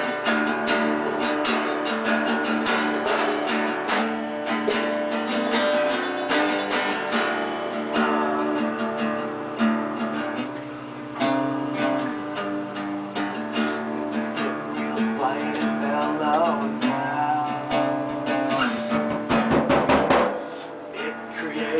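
Guitar being strummed and picked in a loose, unhurried jam, chords ringing on with repeated strums and some wavering notes in the second half.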